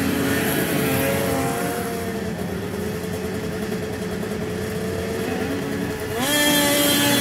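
Racing snowmobiles' two-stroke engines idling and blipping at a snocross start line. The revs rise sharply about six seconds in.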